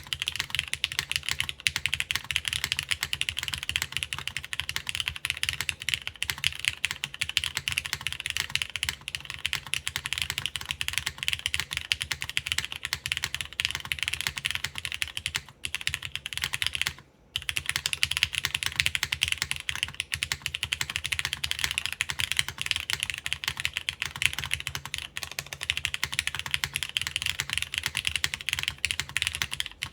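Continuous fast typing on a Plywrks Spyder TKL mechanical keyboard in o-ring mount, with lubed linear Cherry MX Black clear-top (Nixie) switches on an aluminium half plate, GMK keycaps and no foam. There is a brief pause about 17 seconds in.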